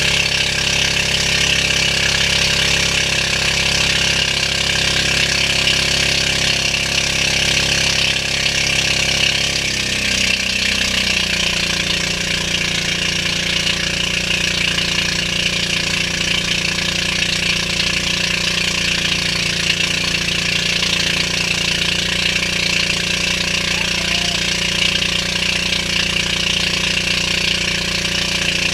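Motorized outrigger boat's engine running steadily under way, over the rush of water and wind along the hull. The engine's note changes about ten seconds in, then holds steady again.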